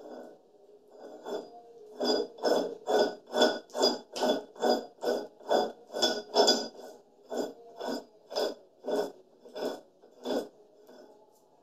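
Steel lock nut being screwed by hand onto the threaded end of a Mahindra tractor gearbox spline shaft, metal working against metal. It makes a regular run of short strokes, about two a second, starting about two seconds in and stopping near the end.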